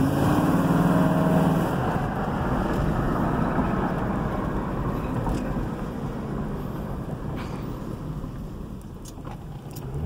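Ford Crown Victoria Police Interceptor's 4.6-litre V8 and road noise heard from inside the cabin as the car drives and slows, louder at first and fading gradually. No grinding or clacking comes from the newly replaced front hub bearing, only the engine.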